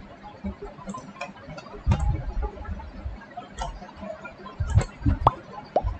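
Sparse, irregular clicks and soft low knocks from a computer mouse being clicked and moved on a desk.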